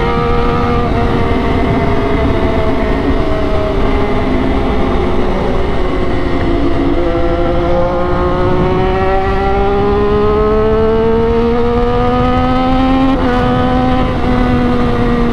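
Triumph Daytona 675R's inline three-cylinder engine under way: the revs sink for several seconds, then climb steadily, with a brief break in the note near the end. A steady wind rush runs underneath.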